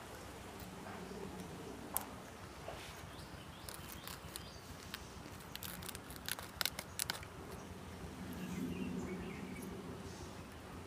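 Banana flower florets being pulled apart by hand and cut on a boti blade: quiet handling with a few sharp clicks, clustered about six to seven seconds in.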